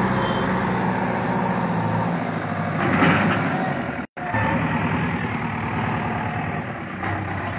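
Diesel engine of a backhoe loader running steadily at low revs.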